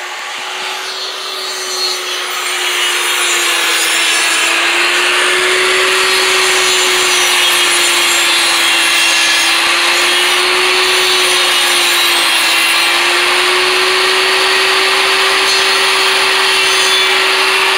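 Electric power saw cutting through a wooden support: a steady motor hum under the rasp of the blade in the wood, which builds over the first few seconds and then holds loud and steady.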